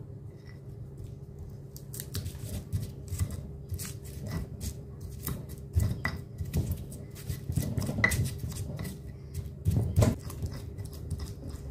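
Stone pestle (ulekan) crushing and grinding candlenut, shallots, garlic and turmeric with salt in a stone mortar (cobek): irregular knocks and scraping of stone on stone, with louder crushing strikes around the middle and near the end.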